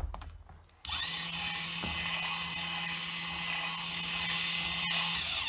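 Full-metal TECHING V8 engine model set down on the table with a thud, then its small electric motor drives the crankshaft, pistons and belts in a steady high-pitched mechanical whir. The whir starts about a second in and cuts off near the end.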